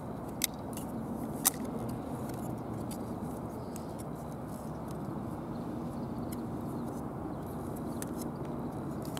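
Steady low background rumble, with two sharp clicks about half a second and a second and a half in from hands gripping and turning a quadcopter frame by hand, its motors off.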